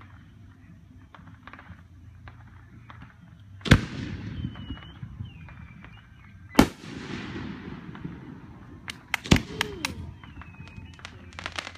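Aerial fireworks shells bursting: two loud booms about three and a half and six and a half seconds in, each followed by a rolling echo, then a quick string of sharp cracks near the end.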